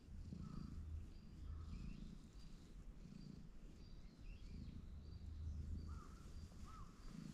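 Cat purring close to the microphone, a low rumble that swells and fades about once a second with its breathing. Faint bird chirps sound in the background.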